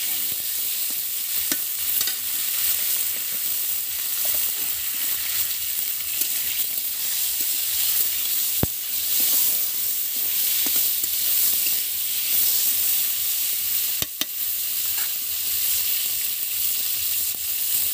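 Cauliflower florets sizzling as they fry in mustard oil in an iron kadai, stirred with a metal spatula that scrapes the pan. Two sharp taps of the spatula on the pan stand out, one about halfway through and one later.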